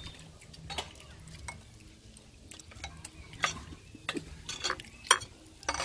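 Metal spoon clinking against ceramic bowls and plates while pork soup is scooped: a few sharp, separate clinks one to one and a half seconds apart.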